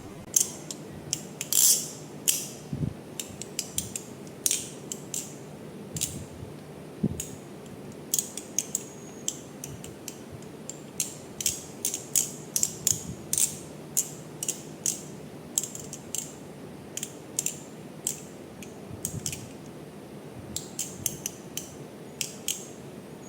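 Balisong (butterfly knife) being flipped: its metal handles clicking and clacking against the blade tang and each other in quick, irregular runs of sharp clicks, often several a second.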